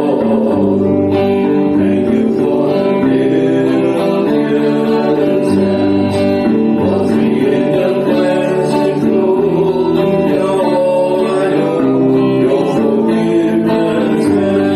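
Worship song: singing over a strummed acoustic guitar, with a steady level throughout.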